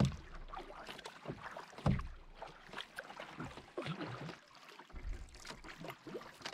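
Canoe paddle strokes through calm water, about one every two seconds, each with a low thump and a splashy swirl and drip of water.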